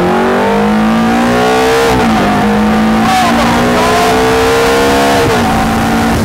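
V8 sports car engine accelerating, its pitch climbing and dipping briefly about two seconds and five seconds in as it shifts up.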